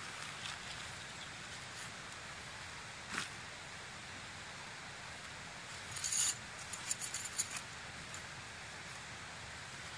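Tent gear being handled while a tent is pitched: rustling and light clinks, with a single click about three seconds in and a cluster of sharp clinks around six to seven and a half seconds, over a steady faint hiss.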